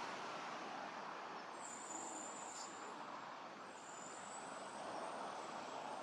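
Steady outdoor background hiss, with a faint, high, thin whine that comes in twice, about a second and a half in and again around four seconds in.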